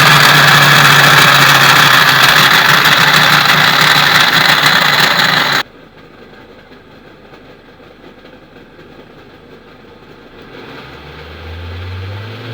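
2003 Audi A4 1.8T engine running with a loud, harsh, really bad noise from its failed A/C compressor. The noise cuts off abruptly about five and a half seconds in. After that there is only faint background, and a low hum swells near the end.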